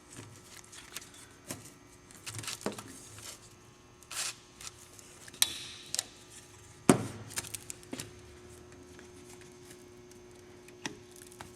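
Old rubber vent-window weatherstrip being pulled out of its metal frame channel by hand: irregular rubbing and scraping with scattered sharp clicks and knocks, the loudest knock about seven seconds in.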